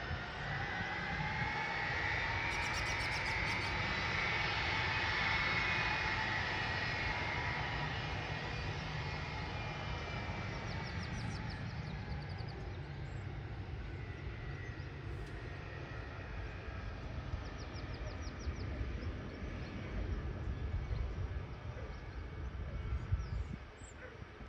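Boeing C-17 Globemaster III's four turbofan jet engines whining over a low rumble. The whine rises a little in pitch over the first few seconds, then slowly drops and fades.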